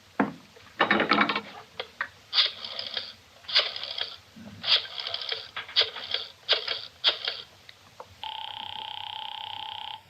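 Radio sound effect of a rotary telephone being used: the handset knocks as it is picked up, the dial whirs back six times, then a steady ringing tone sounds on the line for nearly two seconds and cuts off.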